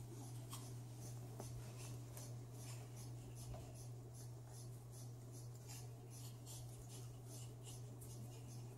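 A raccoon's claws scratching and scraping at the carpet and sisal of a cat scratcher: a busy run of short, dry scratches, a few a second, over a steady low hum.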